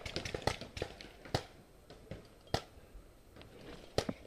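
Scattered faint, sharp pops at irregular intervals: paintball markers firing across the field.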